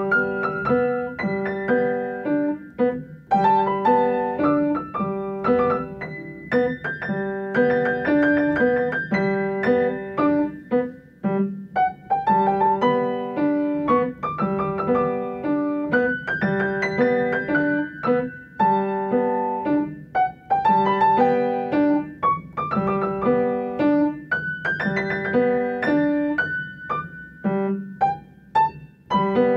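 Upright piano played solo: variations on a theme in D, a run of chords and melody notes in short phrases with brief breaks between them.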